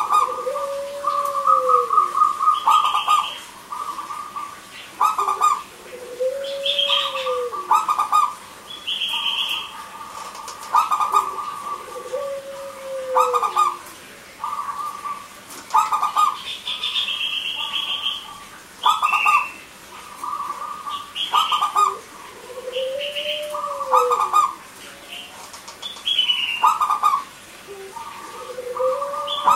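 Zebra doves (perkutut) cooing: phrases of short, quick notes repeated again and again, with a low rising-and-falling coo recurring about every five and a half seconds. Higher chirps from other birds come in between.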